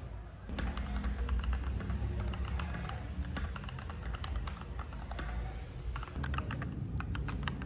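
Typing on a Keychron K4 Pro mechanical keyboard: a fast, uneven run of keystrokes that starts about half a second in.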